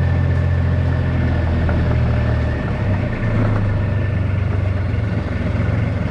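A vehicle engine idling steadily with a low hum. It wavers briefly about two and a half seconds in, then settles again.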